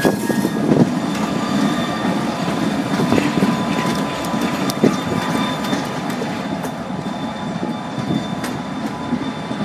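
Short freight train hauled by two EMD SD40-2 diesel locomotives rolling past: a steady rumble with scattered clicks of wheels over the rails and a thin, high, steady squeal.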